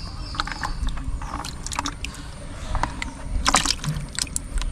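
Water splashing and sloshing in irregular bursts, with scattered sharp splashes or knocks, the strongest cluster a little past halfway.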